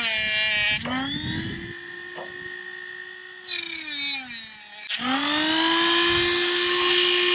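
Dremel rotary tool cutting down a plastic vent trim ring: a steady high whine that spins up to speed, slows briefly about four to five seconds in, then spins back up and runs steadily.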